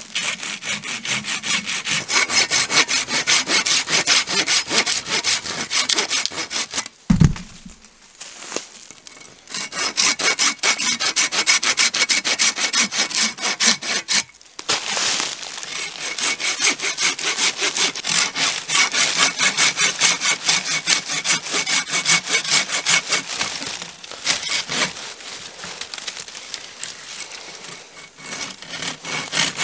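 A hand pruning saw cutting through a branch in quick, rasping back-and-forth strokes. The sawing stops briefly twice, once with a low thump about a quarter of the way in.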